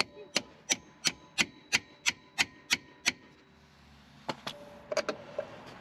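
A run of sharp taps, evenly spaced at about three a second for some three seconds, then four more scattered taps near the end.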